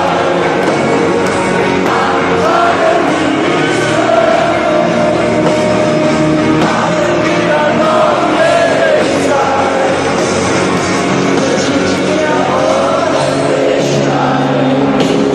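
Live rock band playing a song with singing over a stadium PA, heard from high up in the stands.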